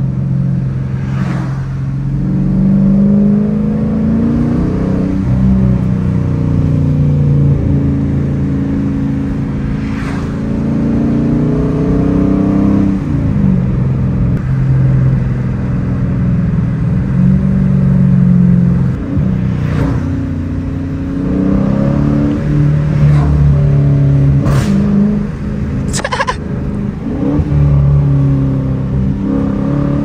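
Dodge Challenger R/T's 5.7-litre Hemi V8 heard from inside the cabin, pulling through the gears at low road speed: the engine note climbs, then drops back at each shift, over and over. Several short sharp cracks cut through it, the loudest about 26 seconds in.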